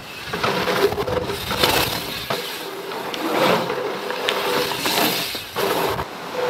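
Hardtail dirt jump bike riding through jumps and berms: tyres rolling, landing and skidding on packed dirt, coming in several louder surges.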